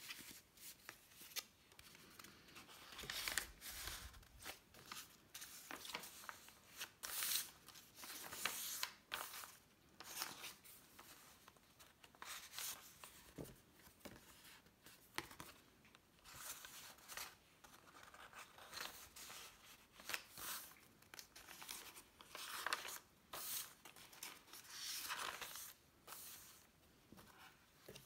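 Pages and tucked-in cards of a handmade paper junk journal being turned and handled: irregular rustling and swishing of paper, some strokes sharper and louder than others.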